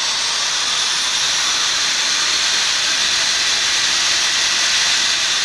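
DCA AZZ250 magnetic drill's electric motor running at speed after a soft start: a loud, steady high whirring hiss with a faint high whine.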